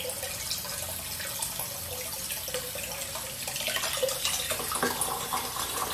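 Homemade water-jet aspirator vacuum pump built from plumbing fittings and fitted with an extension, running with a steady rush of water. From about three and a half seconds in come small clicks as the gauge and brass fitting are handled.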